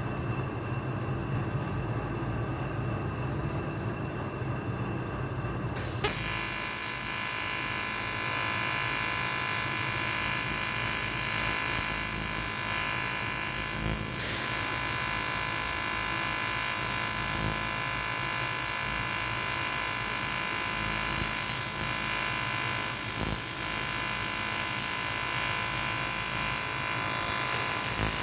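A low steady hum, then about six seconds in a click and an AC TIG welding arc strikes on aluminium. The arc buzzes steadily with a high hiss for the rest of the time.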